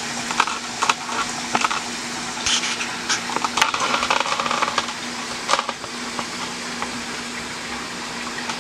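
Metal spoon clicking and scraping against a greased metal Bundt pan as thick cake batter is spread in it: several sharp clicks through the first half and a longer scrape about four seconds in. A steady low hum runs underneath.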